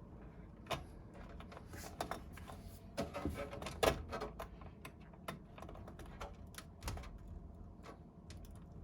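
Small, irregular clicks and taps of a plastic cable connector being handled and pushed onto a motherboard pin header; the front-panel HD audio plug is being seated. The loudest click comes about four seconds in.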